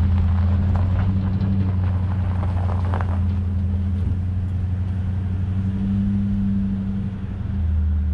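Pickup truck driving and towing a loaded firewood trailer: a steady low drone of engine and road, with a few sharp rattles and clanks from the rig in the first three seconds.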